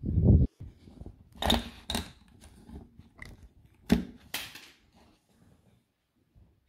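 A dull thump, then a few sharp cracks and clicks with scraping between: a screwdriver prising and snapping plastic and nickel strips off the 18650 cells of a DeWalt Flexvolt battery pack.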